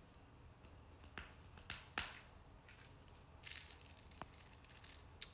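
Almost silent room tone, broken by a few faint, sharp clicks scattered through it and a brief soft rustle about three and a half seconds in.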